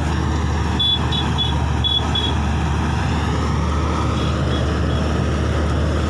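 Kuldeep combine harvester running steadily as it cuts standing rice: a constant engine drone over a low hum. A few short, high chirps come about a second in.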